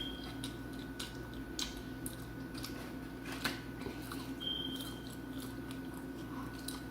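A person chewing and biting into fried chicken close to the microphone, with scattered small crunches and clicks. A steady low hum runs underneath.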